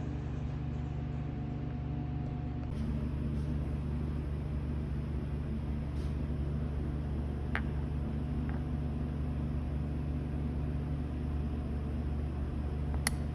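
A steady low hum of background machinery, with a few faint, sharp clicks of small metal parts being handled.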